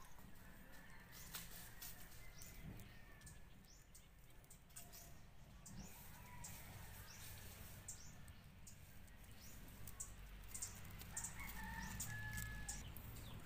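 Faint outdoor ambience: scattered short high chirps and a low rumble, with a short bird call near the end.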